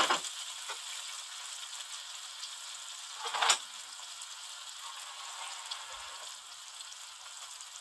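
Chopped onion, tomato and garlic sizzling steadily in oil in a wok as they soften, with a brief louder crackle about three and a half seconds in.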